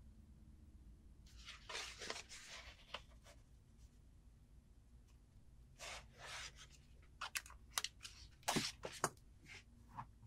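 Soft rustling of a paper pattern piece and fabric being handled on a cutting mat while marks are drawn with a pen. Later there is a cluster of light taps and clicks.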